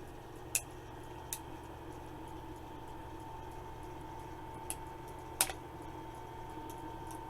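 Toy packaging being worked open by hand: a few short, sharp plastic clicks and snaps, the loudest about five and a half seconds in, over a steady background hum.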